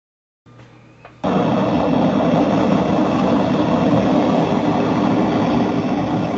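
Playback of an amplified EVP audio recording: after a brief silence, a loud, steady hiss with a low hum cuts in about a second in, the boosted background noise of the recorder.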